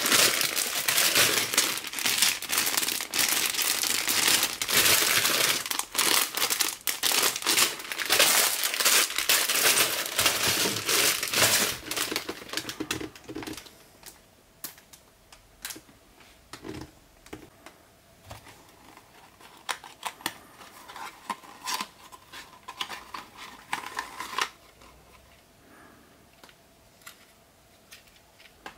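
Plastic bags of LEGO parts crinkling and rustling as they are handled and sorted, dense and loud for roughly the first half. After that it drops to quieter, scattered rustles and light clicks of handling.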